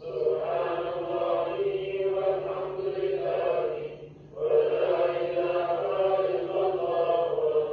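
A congregation chanting dhikr together, the recitation of the names of God, in long sustained phrases with a brief pause for breath about four seconds in. A faint steady low hum runs underneath.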